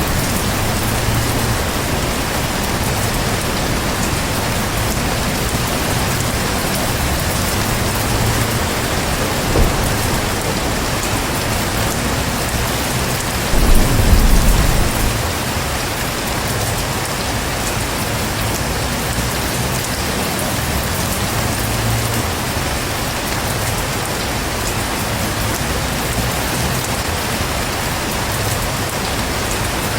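Heavy rain falling steadily, with a short low rumble of thunder about halfway through.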